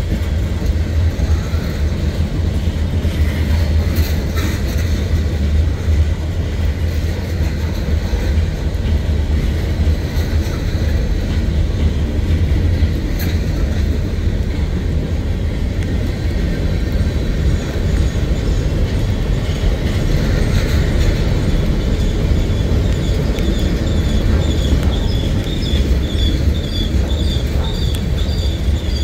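Freight cars of a CSX manifest train rolling past, a steady low rumble of wheels on rail. In the second half a high, wavering squeal from the wheels joins in and grows stronger toward the end.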